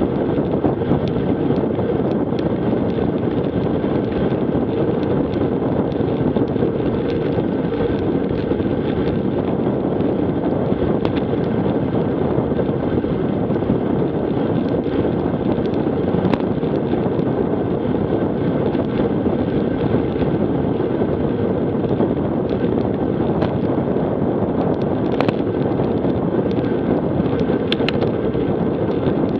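Steady wind rushing over the microphone of a bicycle-mounted action camera at about 21 mph, mixed with tyre noise on rough rural asphalt. A few short sharp ticks.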